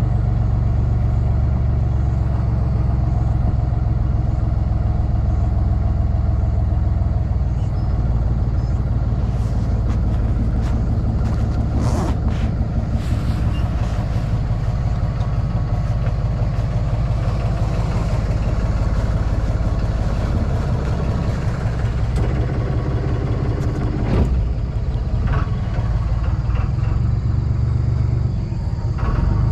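Small ferry boat's engine running steadily under way with a deep, even hum, its note shifting about a quarter of the way in; a couple of short knocks sound in the middle and later on.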